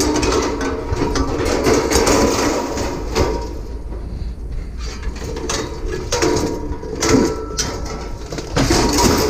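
Scrap metal pieces clanking and knocking against each other as they are handled, a string of irregular knocks over a steady low hum.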